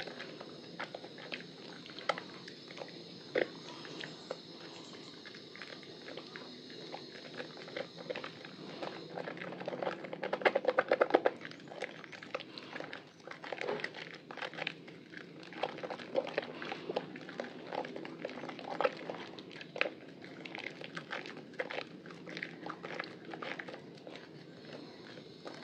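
Hands squeezing and kneading a soaked, softened bar of Lervia milk soap in a basin of soapy water: wet squelching and crackling lather with many small clicks. A run of louder squishes comes about ten seconds in.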